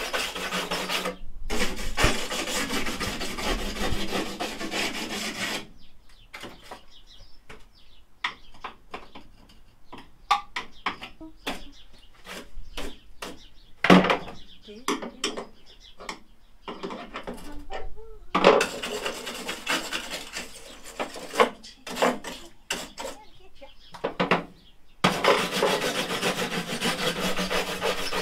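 Hand scraping and rubbing on the bare ribbed steel load floor of a stripped Ford Transit van. It comes in long dense stretches at the start and again over the last third, with scattered taps and knocks of tools on the floor in between.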